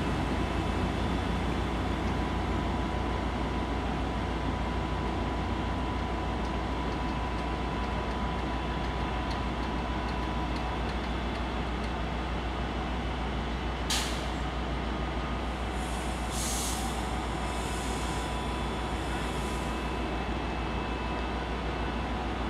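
A Class 175 diesel multiple unit's engines running as it pulls away from the platform, a low rumble that slowly fades. A sharp burst of air hiss comes about two-thirds of the way through, and more hissing follows.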